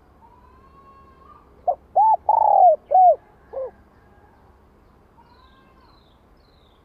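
Spotted dove cooing: one phrase of five notes, two short ones, a longer and louder middle note, then two more short ones, the last fainter.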